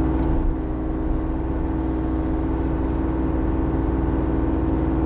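Bobcat E35i mini excavator's diesel engine running steadily, heard from the operator's cab, with a slight dip in loudness about half a second in.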